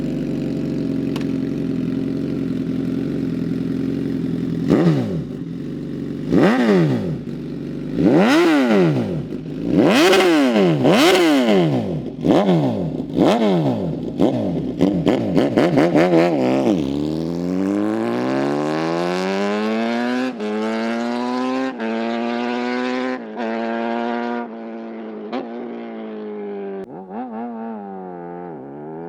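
Suzuki GSX-S1000 inline-four through a full exhaust system with a titanium HP4 slip-on muffler, idling steadily and then revved in about eight sharp throttle blips that rise and fall quickly. After that, the engine speed climbs more slowly and holds high for several seconds, then dips and rises again near the end.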